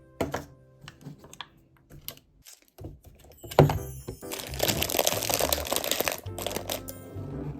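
Crinkling of plastic packaging for about two seconds in the middle, amid scattered clicks and knocks of items being handled, over soft background music.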